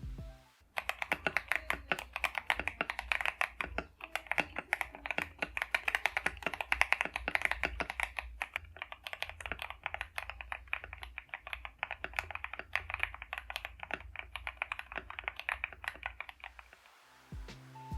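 Mechanical keyboard fitted with Akko V3 Cream switches being typed on quickly and continuously, many keystrokes a second. The typing starts just under a second in and stops about a second before the end.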